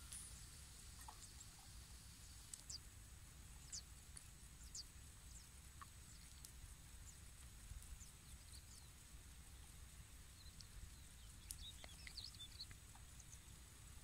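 Faint, scattered high chirps from a European goldfinch, single short notes every second or two, with a brief run of twittering about twelve seconds in.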